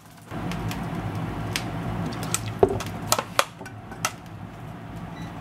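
Cooking at a pot: a steady low hum with several sharp clicks and knocks against the enamel pot.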